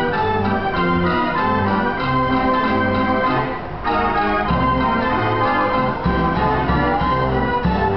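Carousel band organ, a Stinson military band organ, playing a tune with a steady beat. The music dips briefly a little past the middle.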